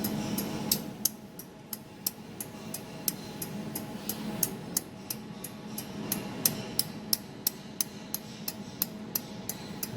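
Pulsed laser spot welder firing repeatedly at a metal board, a sharp tick about three to four times a second, over a steady hum from the machine.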